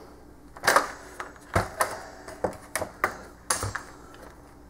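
The hard plastic base of a Nesco food dehydrator being handled and turned over with a metal tool in hand, making a string of irregular clicks and knocks, two of them duller thumps.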